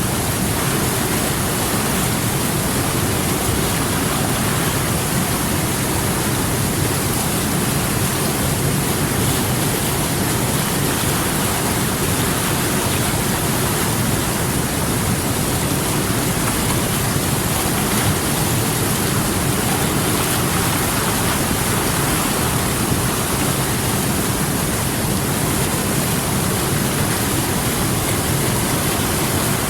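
River water rushing and churning, a steady, loud, even sound with no change.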